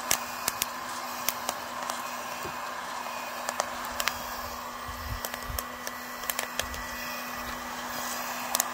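Coffee beans cracking in first crack inside a homemade hot-air drum roaster: irregular sharp pops, sometimes two or three close together, over the steady rush of the hot-air blower and a faint motor hum. First crack marks the beans reaching a light-to-medium roast.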